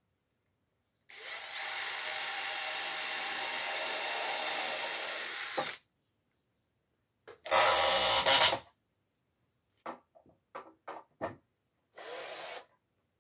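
Cordless drill driving screws into the wooden frame: one steady run of about four and a half seconds with a constant motor whine, then a louder run of about a second, a string of quick short pulses, and a brief final run near the end.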